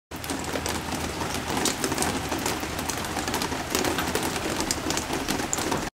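Intense, loud rain pouring down, with many close, sharp drops hitting a deck over a steady hiss. It cuts off suddenly at the very end.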